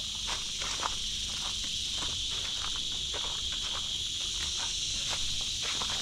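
A steady, high-pitched chorus of insects, with footsteps scuffing and crunching on a dirt trail strewn with dry leaves.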